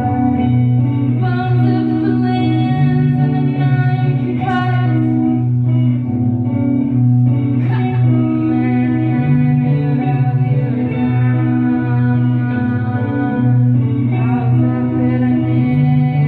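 Live band music: a repeating guitar melody over sustained low notes that change every second or so.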